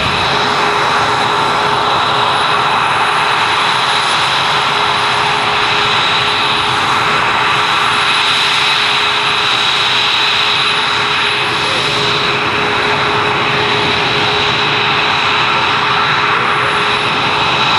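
Jet aircraft engine running steadily on the ground: a constant roar with high, steady whines on top.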